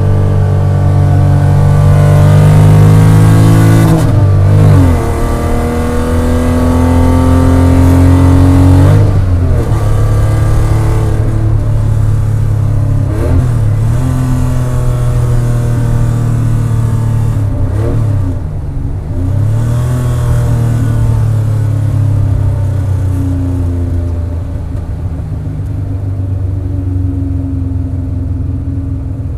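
1972 Porsche 911 2.4's air-cooled flat-six engine pulling hard, its pitch climbing and then breaking at gear changes about every four to five seconds. In the last third it settles to a steadier drone that eases off slightly toward the end.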